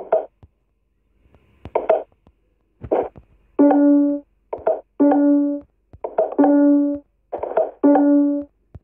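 Clock tower chime striking midnight. A few scattered strokes come first; then, from about three and a half seconds in, one low note is struck again and again, about every second and a half. Each stroke rings and fades: the hour being counted out.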